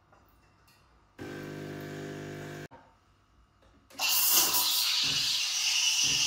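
Coffee being made: a brief electric hum that starts and stops abruptly, then, from about four seconds in, loud hissing with a low pulsing under it.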